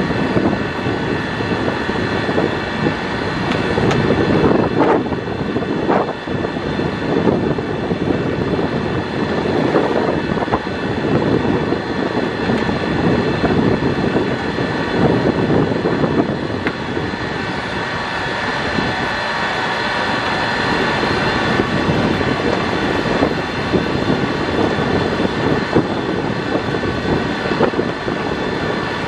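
Pier train running along its track: a steady rumble of wheels and running gear with a continuous whine from the drive, and a few brief knocks about five to six seconds in.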